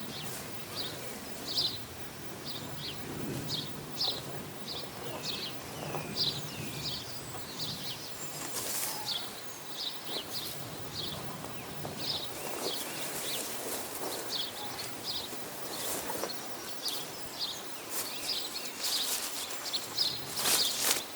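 Small birds chirping repeatedly over a steady outdoor background, with a few sharp clicks or knocks, most of them near the end.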